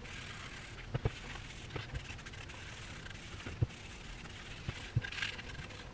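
Faint rubbing of a paper shop towel wiping wood conditioner onto a wooden rifle stock, with a few soft knocks as the stock is handled on the cloth-covered bench.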